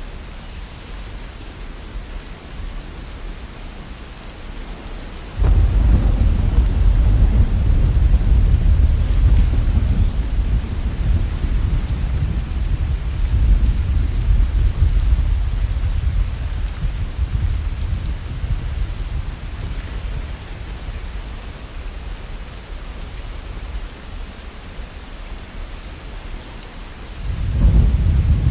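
Heavy rain falling steadily with thunder: a loud rumble of thunder breaks in suddenly about five seconds in and rolls on, slowly fading over many seconds, and another rumble begins near the end.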